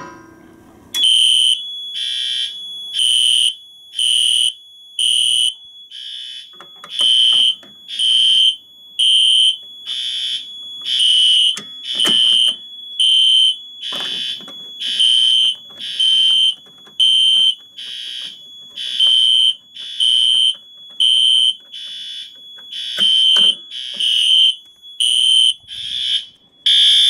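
Fire alarm horns on a fire alarm system in alarm: a loud, high-pitched tone pulsing about once a second, over a steady fainter tone at the same pitch. It starts about a second in.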